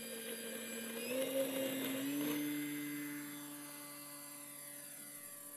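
Multiplex Mentor RC model plane's electric motor and propeller whining as it throttles up for takeoff, the pitch stepping up twice in the first couple of seconds. The steady whine then fades slowly as the plane flies off.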